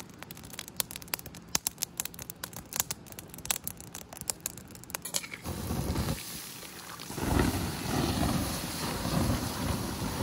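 Wood fire in a metal fire ring crackling, with many sharp irregular pops for about five seconds. Then a louder rushing noise with a low rumble takes over, swelling about seven seconds in.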